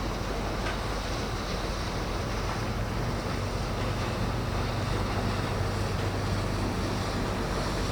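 Steady waterside ambience of wind and waves, with a constant low hum underneath and no distinct events.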